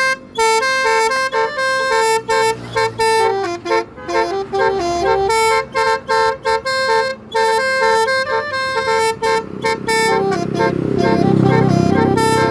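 Telolet basuri musical vehicle horn playing a quick melody of short notes that step up and down in pitch. Near the end a vehicle passes under the horn notes, swelling and fading.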